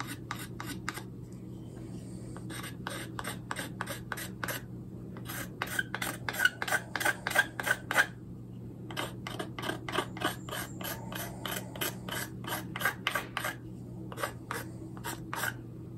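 Knife blade scraping over a carved ash-wood spoon, smoothing out the ridges. Quick strokes come about four or five a second, in runs broken by short pauses.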